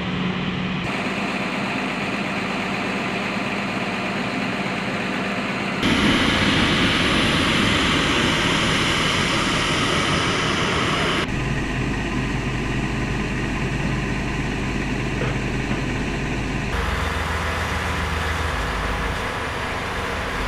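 Loud, steady engine noise on a military flight line, from turboprop aircraft and vehicles running. The sound changes abruptly four times as the footage cuts between shots, and it is loudest from about six to eleven seconds in.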